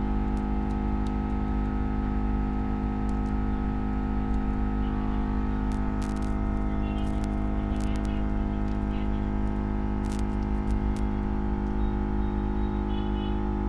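A steady machine hum, with faint scattered clicks and crackles from a cutting wire being drawn under cracked touch glass to part it from the phone's display panel. The crackling is the broken glass cracking as the wire passes.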